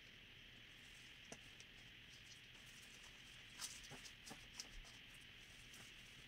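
Faint rustling and a few soft ticks from an evergreen wreath's branches being handled and pushed into place on a cloth-covered table, most of them around the middle, over a low steady hiss.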